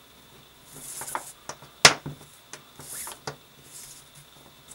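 Paracord swishing and rustling as a strand is pulled through a woven bracelet, in a few soft strokes. There is one sharp click about two seconds in and a few lighter ticks.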